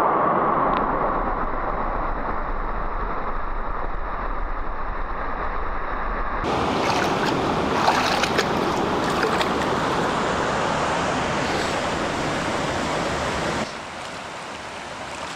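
Steady rush of fast-flowing water. The sound shifts abruptly about six seconds in, and becomes quieter near the end.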